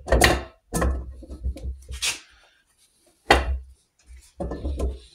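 Knocks and clunks of aluminium engine crankcase halves being handled and fitted together dry over the crankshaft by gloved hands, the loudest clunk about three seconds in, with some rubbing and a quick cluster of knocks near the end.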